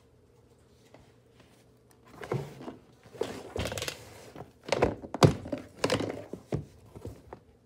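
Handling noise from a hand moving a baseball cap on a smart speaker: a few seconds of irregular dull thunks and rustling, starting about two seconds in.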